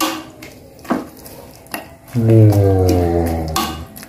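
A metal spoon stirring soup in an aluminium pot, knocking against the pot about three times. About halfway through comes a low drawn-out humming tone lasting about a second and a half.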